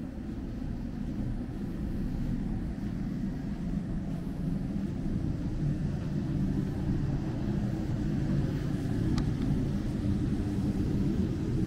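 Low, steady rumble of street traffic that slowly grows louder, with a single faint click about nine seconds in.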